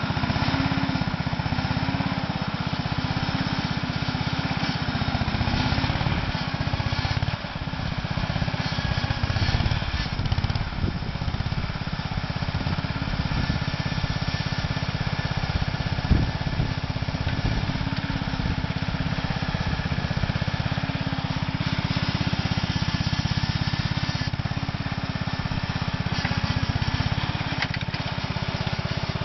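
Mead Speedcat mini crawler dozer's small single-cylinder air-cooled Wisconsin engine running steadily under load as the machine crawls over rough dirt, with a single knock about halfway through.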